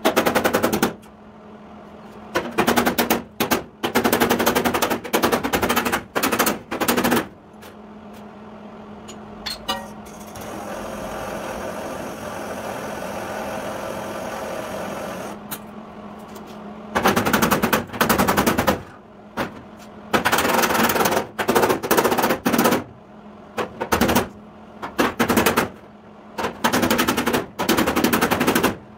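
Quick runs of hammer blows on the sheet steel of a 1953 Chevy truck rear fender, knocking dents out from inside the wheel well. Midway the blows stop for about five seconds of steady hissing from a handheld gas torch heating the metal, then the hammering resumes.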